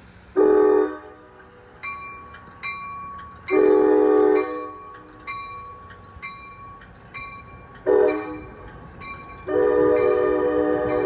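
NJ Transit train horn sounding four blasts, the third short and the last one held on. In between, a bell rings steadily, about three strikes every two seconds.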